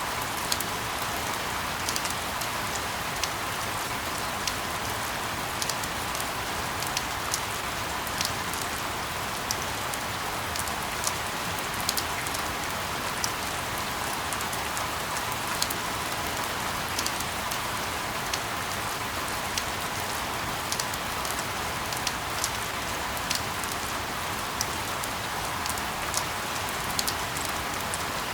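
Steady rain: a constant even hiss with scattered sharp drop ticks landing irregularly, used as sleep ambience.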